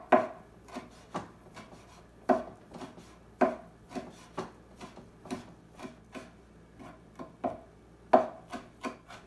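Knife chopping parboiled tripe into fine mince: irregular strikes, about two a second, with a few louder blows.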